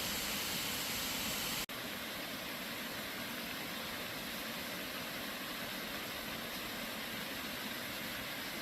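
Steady rushing of a waterfall, broken by a sudden brief gap about two seconds in, after which it carries on slightly quieter.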